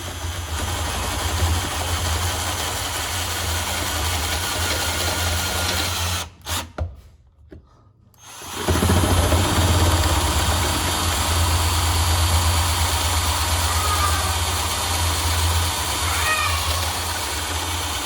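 Electric drill running, boring through sheet metal to enlarge a drilled hole. It stops about six seconds in and starts again some two seconds later.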